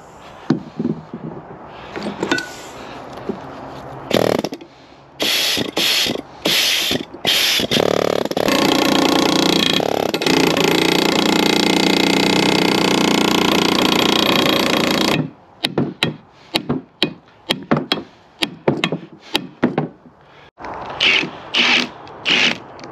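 Pneumatic air hammer on a rusted, seized steering ball joint to break up the rust. It first runs in short bursts, then runs without a break for about seven seconds and stops suddenly. Near the end a cordless impact wrench drives a ball joint press in short bursts.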